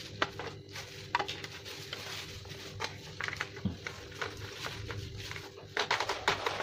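Plastic stock of an airsoft AK47 replica being fitted onto its receiver by hand: scattered light clicks and knocks of plastic parts, with a quick run of sharper clicks near the end as the stock is pushed home.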